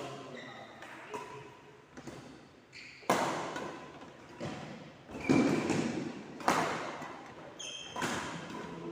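A series of heavy thuds, about four of them a second or more apart, each echoing in a large room, with short high squeaks in between.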